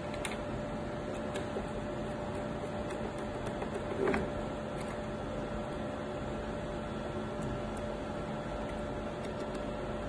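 Steady low hum with faint, scattered light clicks and a soft knock about four seconds in, as small screws are driven into the power-supply cover by screwdriver.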